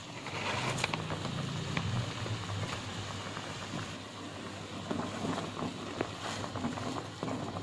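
Broth boiling in a ramyeon pot over a gas burner: a steady bubbling hiss with scattered light clicks and taps.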